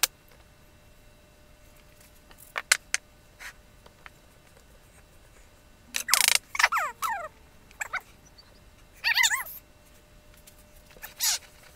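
A cat meowing several times, with falling calls about six seconds in and a wavering call near nine seconds, after a few light clicks and taps.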